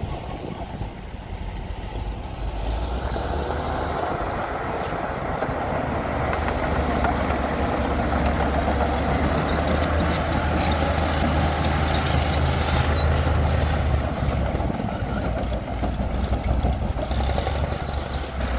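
Komatsu D60P bulldozer's diesel engine running under load, growing louder over the first several seconds, with a few metallic knocks midway.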